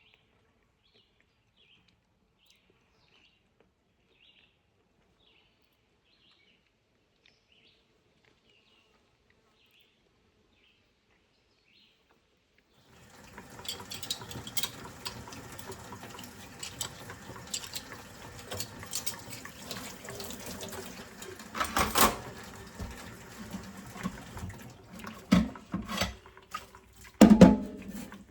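Faint high chirps a couple of times a second, then about halfway through water starts running from a tap into a sink, with knocks and clatter. The loudest knocks come near the end.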